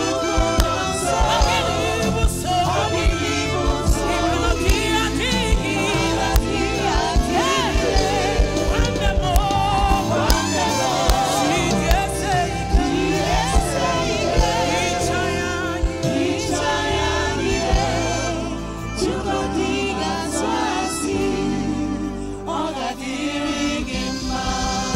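Gospel song: singers over a band with a steady beat. The deepest bass drops out for a few seconds about two-thirds of the way through.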